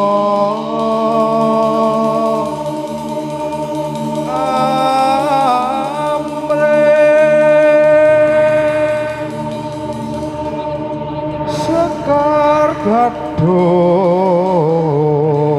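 Music: a Javanese-language sung chant, its long held notes wavering and sliding in pitch.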